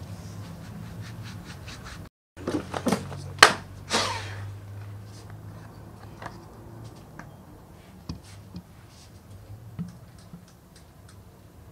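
Hands handling a folding case: a few sharp knocks and clicks about three to four seconds in, the last ringing briefly, then lighter scattered taps, over a low steady hum.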